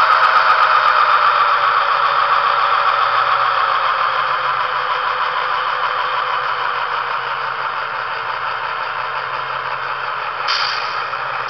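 Sound decoder of a Broadway Limited N scale EMD E8 diesel model playing its prime-mover sound through its small onboard speaker. The engine note falls in pitch and grows quieter over several seconds as it winds down toward idle. A short hiss comes about ten seconds in.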